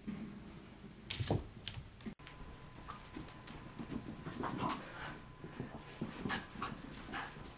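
Rat terrier panting and making small whimpering sounds while moving about, with a short knock about a second in.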